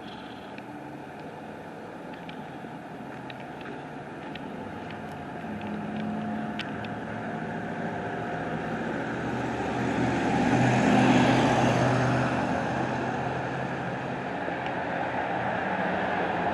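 A motor vehicle's engine growing louder, passing closest about eleven seconds in, then fading somewhat.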